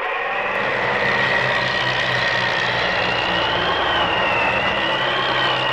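Steady engine drone with a low hum and a high whine that wavers slowly in pitch, laid on as a dubbed sound effect rather than the aircraft's own sound.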